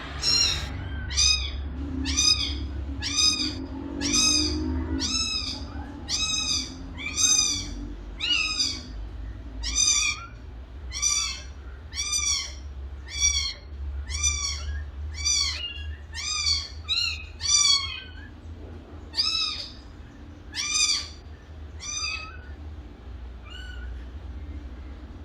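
Kitten meowing over and over, short high meows that rise and fall in pitch, about one a second, growing fainter near the end. A steady low hum runs underneath.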